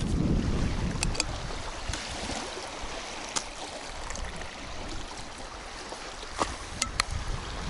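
Wind rumbling on the microphone over water lapping at the shore, with a few small sharp clicks: one about a second in, one midway and three close together near the end.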